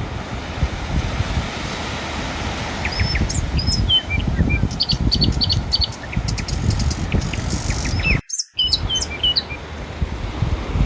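Ocean surf washing steadily, with small birds chirping in quick, short, high notes from about three seconds in. The sound cuts out completely for a moment about eight seconds in.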